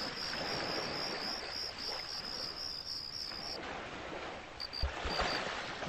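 Crickets chirping at night: a continuous pulsing trill that stops about three and a half seconds in, then short separate chirps, over a steady hiss. A few soft low thumps come near the end.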